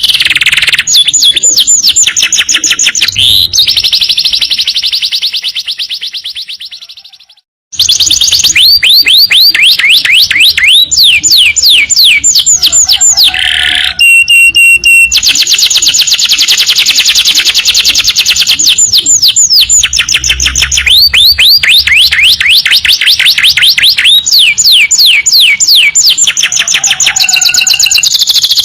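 Domestic canary singing long, fast trills of repeated high downward-sliding notes alternating with buzzy rolls. The song fades out about six seconds in, breaks off in a moment of silence, then starts again in the same long trill bursts.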